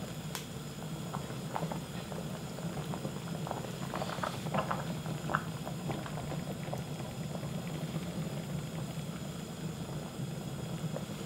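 Pot of tteokguk (rice-cake soup) boiling, with bubbles popping in scattered bursts over a steady low hum.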